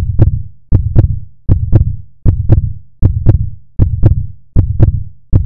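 Heartbeat sound effect: a steady lub-dub of paired deep thumps, a little over one beat a second.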